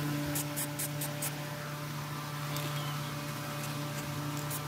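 A steady low mechanical hum, like a motor running, with a few light ticks and crackles in the first second and again near the end.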